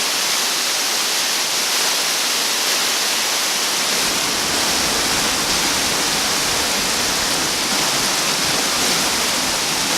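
Steady rushing noise of a waterfall, falling water hissing without a break; a deeper rumble fills in from about four seconds in.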